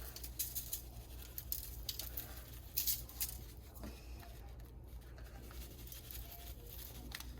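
Dried Italian seasoning being shaken out of its packet onto a pan: a faint, irregular patter of small ticks and rustles over a low steady hum.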